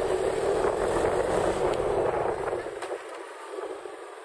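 Wind rushing over the microphone with engine and road noise during a motorcycle ride, dropping off about three seconds in to quieter street background.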